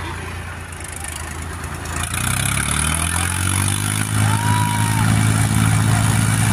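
Diesel tractor engines running and revving up under load as they pull a stuck loaded trolley, growing louder about two seconds in and again a couple of seconds later.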